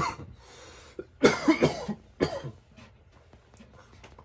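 A person coughing in a few harsh bursts, the loudest just after a second in and a shorter one about two seconds in.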